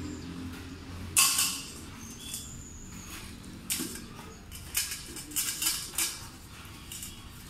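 Stainless steel dog bowl and its chain clinking against concrete as a husky puppy noses into it to eat. The sharpest clank comes about a second in, followed by a run of lighter clinks in the middle.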